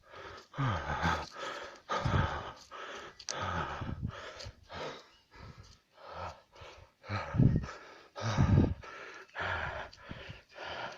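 Heavy breathing: loud, noisy breaths about once a second, some exhalations carrying a falling voiced note like a grunt or snort.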